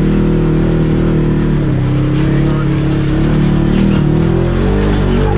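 Side-by-side UTV engine running under load as it climbs a rock slope, its pitch rising and falling a little with the throttle.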